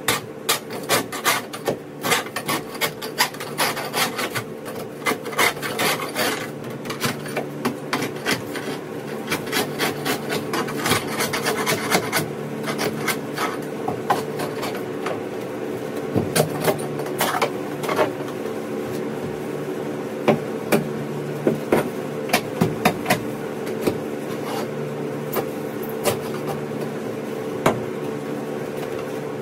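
Long-handled scraper scraping and chipping old foam and debris off a fiberglass boat bottom in quick, rasping strokes, dense at first and thinning out after about twelve seconds. A steady low hum runs underneath.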